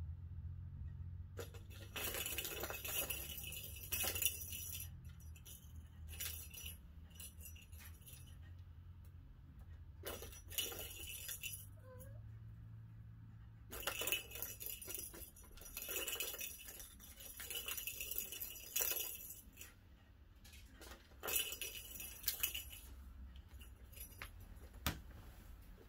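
Balls rolling and clattering around the tracks of a plastic tiered cat track toy as a kitten bats them, in bursts of one to a few seconds with short pauses between.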